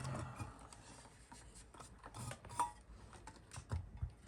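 Faint rubbing and light scattered clicks as small objects are handled on a workbench, with a few sharper taps in the second half.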